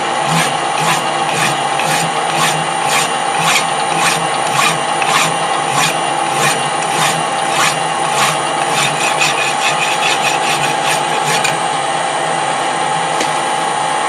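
Hand file scraping over a turning metal part, about two strokes a second, over the steady hum of the running lathe. The strokes shape the end of a replacement bolt and stop shortly before the end.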